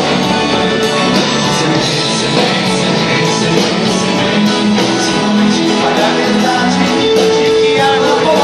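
Live band music played through a concert hall's PA, heard from within the audience, with guitar to the fore.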